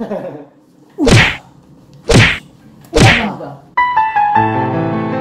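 Three comic slap sound effects about a second apart, each sliding down in pitch, followed near the end by a short music cue of steady bright tones.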